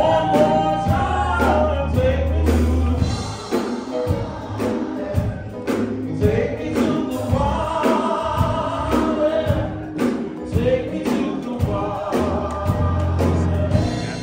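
Gospel music: several voices singing together over a band, with strong bass and regular drum hits.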